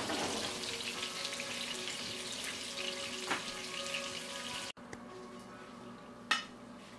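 Skin-on salmon fillets sizzling and crackling in hot oil in a frying pan. The sizzle cuts off abruptly after nearly five seconds, and a single sharp click follows near the end.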